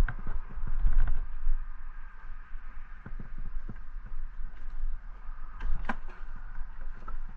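Scattered knocks and scrapes on weathered wooden dock boards, over a steady low rumble.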